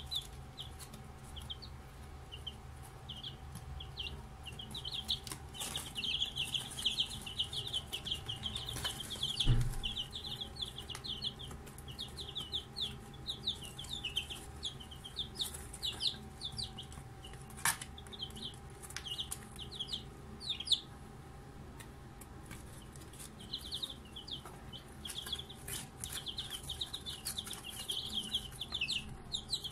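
Newly hatched chicks peeping: rapid runs of short, high, falling cheeps, with a lull about two-thirds of the way through. A faint steady hum sits underneath, and there is one low thump about ten seconds in.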